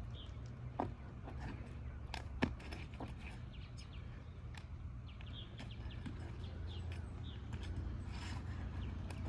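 A few sharp clicks and light scraping of a pry bar working nails loose from asphalt roof shingles, over a low steady rumble, with faint bird chirps.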